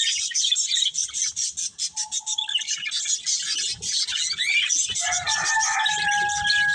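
Budgies chattering and chirping continuously, with a long, lower held call starting about five seconds in.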